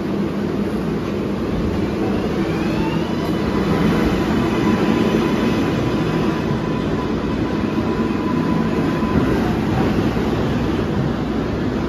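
R142A subway train running, a steady rumble of wheels on track with a faint whine that rises in pitch about two seconds in.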